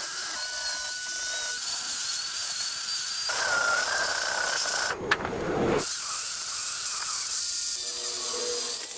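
A small power tool running with a steady high hiss and thin whine. It grows louder about three seconds in and breaks off briefly around the middle.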